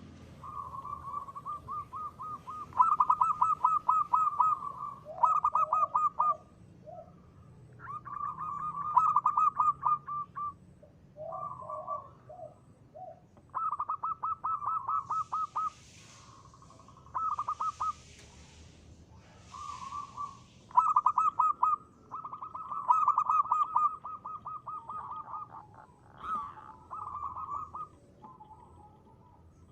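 Zebra dove (perkutut) cooing in repeated bouts of quick, trilled notes at one pitch, some bouts ending in a few lower notes. About halfway through there are three short rushing noises.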